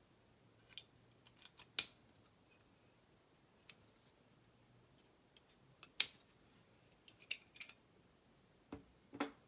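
Small metal clicks and clinks as flat lock levers from a lever pack are handled and set down, about a dozen scattered knocks with two louder ones near 2 and 6 seconds in.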